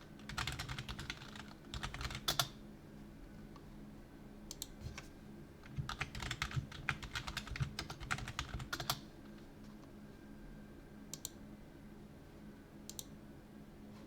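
Typing on a computer keyboard: two runs of rapid key clicks, the second longer, then a few single key presses near the end.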